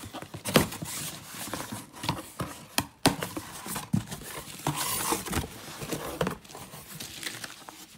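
Cardboard shipping box being torn and pulled open by hand: irregular rustling and scraping of the flaps, with many sharp knocks and clicks.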